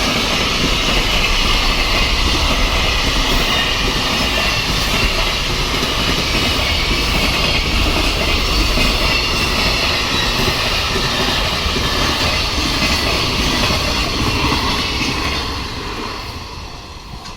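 JR freight train running past, its wagons mostly empty, with steady loud wheel-on-rail noise that dies away near the end.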